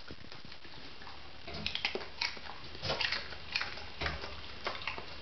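Springer spaniel crunching on a carrot: a string of irregular sharp crunches, a few a second, starting about a second and a half in.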